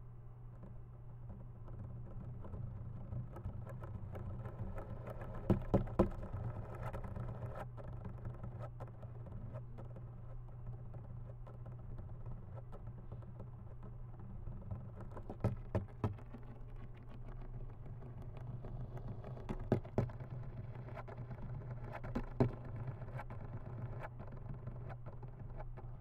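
Courtship signals of a male Schizocosa crassipes wolf spider: clusters of rapid, sharp ticks and clicks, four times, over a steady low hum.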